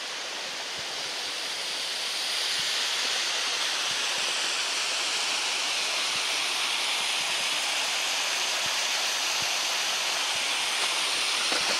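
Steady rush of flowing water, growing louder over the first two seconds or so, then holding level.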